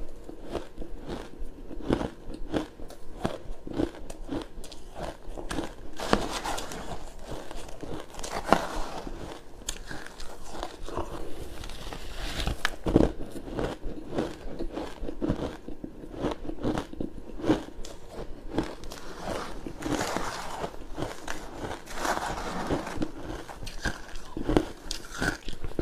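Close-up biting and chewing of hard pink ice: a steady run of short crunches, several a second, with a few louder bites along the way.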